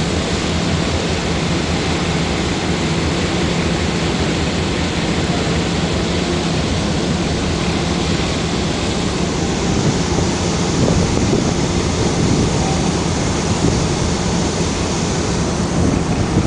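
A ferry's engine running steadily, a constant low hum under the rush of the churning wake and wind buffeting the microphone.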